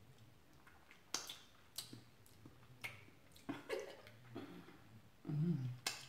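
Wet mouth sounds of someone sucking on a hard lollipop: sharp lip smacks and tongue clicks at irregular intervals, with a short hum of enjoyment near the end.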